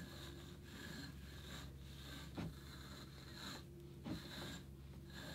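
Soft, faint rustling of wool fibre being drawn off the steel tines of a wool comb by hand, with a couple of faint light clicks, over a steady low room hum.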